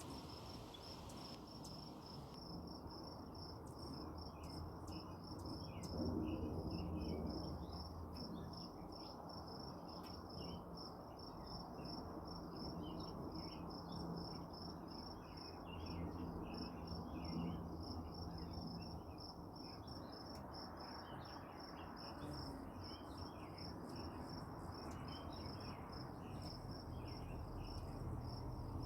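Insects chirping in a steady, fast-pulsing high trill, with many short, scattered bird chirps. A low hum swells up a couple of times.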